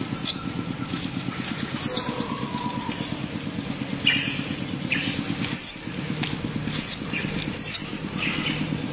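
A motor engine running steadily at idle, with a rapid low pulsing throughout. Several short high-pitched squeaks sound over it.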